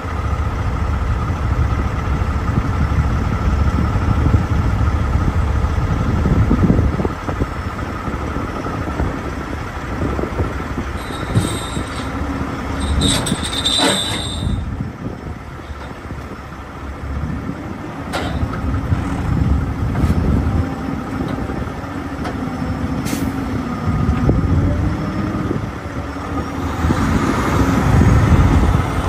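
Loaded log truck's diesel engine running, with the rig rumbling and rattling. A brief high-pitched squeal comes about halfway through.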